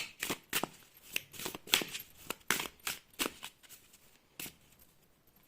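Tarot cards being handled: about a dozen short, sharp card snaps and slides in an irregular run, stopping about four and a half seconds in.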